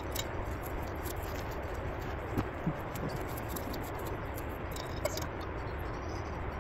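Rustling and scattered small clicks and soft knocks of camping gear being rummaged through and handled, over a steady background hiss.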